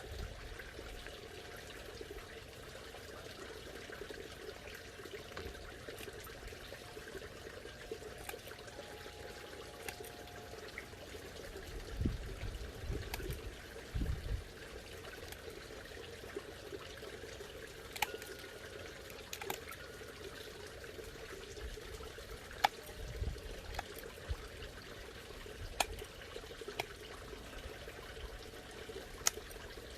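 Steady bubbling, trickling water. A few sharp clicks and some low thumps break in, about halfway through and again near the end.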